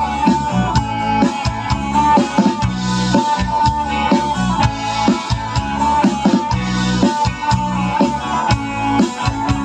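Band music without vocals: an instrumental passage with guitar over a drum kit keeping a steady beat.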